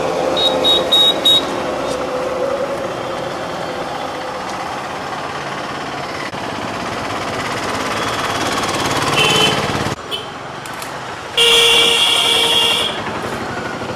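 Road traffic running steadily, with four quick short horn toots near the start and a loud horn blast of about a second and a half near the end.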